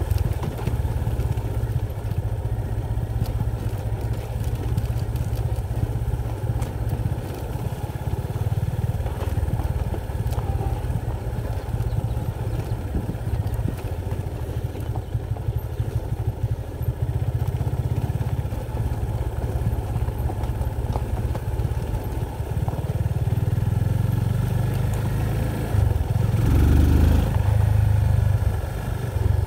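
A vehicle running on the move downhill, a continuous low rumble that grows louder near the end.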